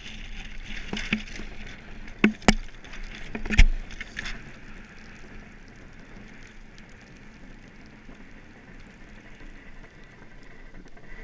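Monotype XV ice boat gliding over lake ice: a steady rushing hiss of runners and wind. A few sharp knocks come about two to four seconds in, the loudest near four seconds, while the boat tacks and the boom swings across to the other side.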